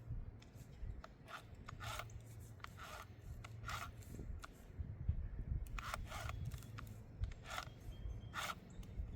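Short, repeated squirts from a bottle of chainsaw bar oil being squeezed onto a mini chainsaw's bar and chain, about one a second, with some pauses.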